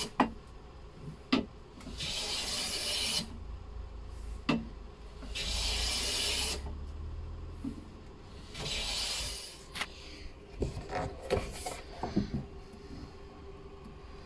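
Metal hand plane shaving the beech edge of a cupboard door, putting a small leading-edge bevel on it: three long hissing strokes about three seconds apart, with sharp knocks between them. A cluster of light knocks and clicks comes near the end.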